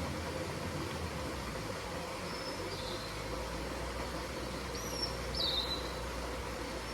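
Wild birds giving a few short, high calls, the loudest about five seconds in, over a steady wash of water sound from a pond.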